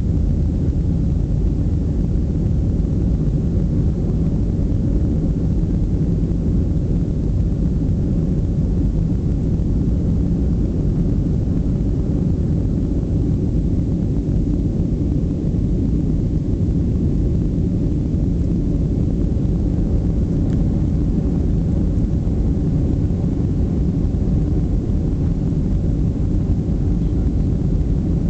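Jet airliner cabin noise during the climb after takeoff: a steady low rumble of engines and airflow heard from inside the cabin.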